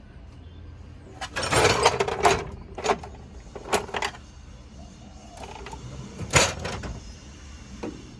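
Hand tools clinking, scraping and knocking against metal engine parts while small bolts are worked loose. There is a rattling scrape about a second in, then several single sharp knocks.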